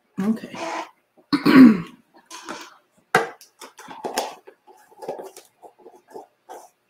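A single cough about a second and a half in, the loudest sound here, followed by a sharp click and light clatter of small craft tools being set down and picked up.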